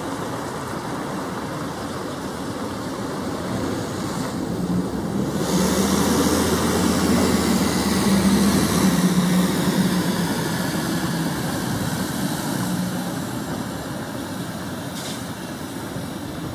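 Heavy truck diesel engines running slowly over a rough dirt road. One engine's hum and low rumble grow louder about five seconds in, hold for a few seconds, then fade.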